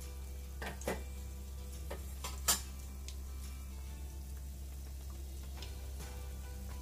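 Samosas frying slowly in gently heated oil: a soft sizzle with scattered small pops and ticks, the oil kept only lightly hot so the pastry cooks through and turns crisp. Two sharper clicks come about a second in and about two and a half seconds in, the second the loudest.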